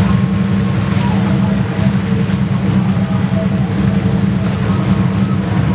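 Motorboat engine running steadily under way, a loud constant low drone.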